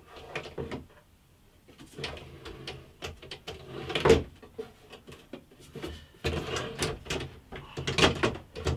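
Wooden drawer being slid in and out on its metal drawer runners while it is fitted to the workbench, with scraping and a string of wood and metal knocks and clicks. The loudest knock comes about four seconds in, and the knocking picks up again about six seconds in.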